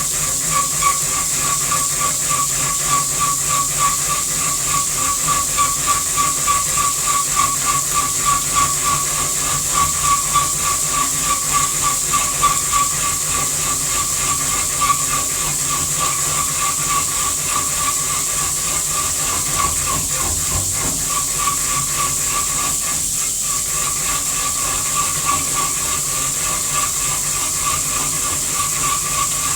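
Haas CNC machining centre running a cut: a steady hiss with a high, rapidly pulsing tone over it, the tone weakening briefly about two-thirds of the way through.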